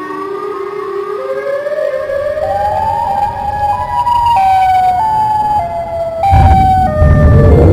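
Siren-like electronic tones, several pitches together, climbing in steps and then stepping back down, broken about six seconds in by a loud low rumble.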